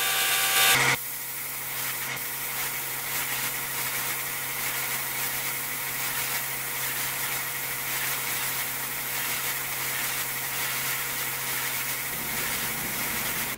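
Gravity-feed spray gun hissing steadily as compressed air atomises clear coat. A louder machine hum cuts off abruptly about a second in.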